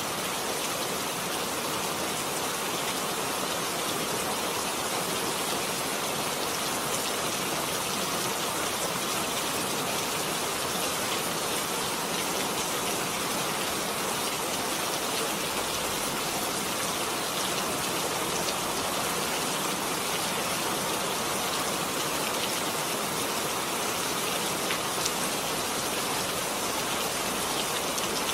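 Steady rain falling, a dense even hiss with faint drops pattering on a surface.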